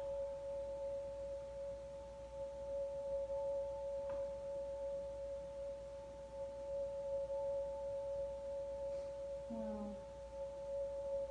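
A steady electronic tone of two held pitches, one low-mid and one higher, unchanging throughout, with a faint tick about four seconds in and a brief falling sound near the end.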